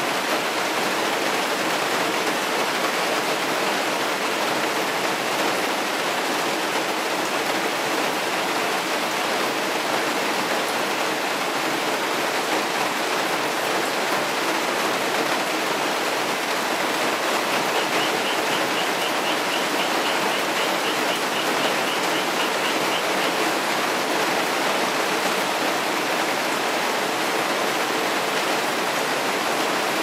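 Heavy rain pouring steadily, with a frog's rapid trilling call rising faintly above it briefly at the start and again for about six seconds past the middle.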